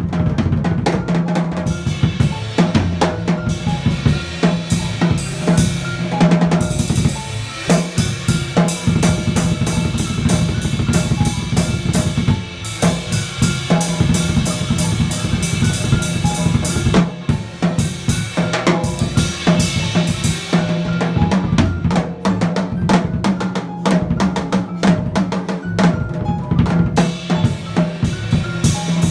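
Jazz drum kit played with sticks in a dense, busy stream of snare, bass drum and cymbal strokes, with low upright bass notes underneath. The playing thins out briefly about seven seconds in and again about twelve seconds in.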